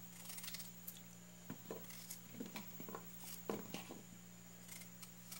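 Faint, scattered soft cuts and taps: a knife cutting small peeled raw potatoes in half and the pieces dropping into a plastic bowl, over a steady low hum.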